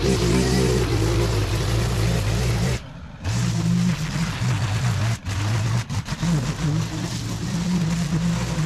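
Gas-powered string trimmer running steadily as it cuts overgrown grass off a concrete walkway. The sound drops out for a moment about three seconds in and dips twice more briefly a few seconds later.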